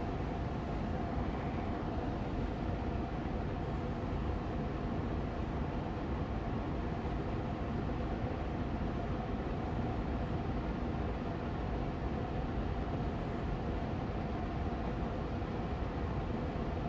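Austin Air Allergy Machine air purifier fan running steadily on medium speed: an even rushing noise weighted toward the low end, with a faint steady hum above it.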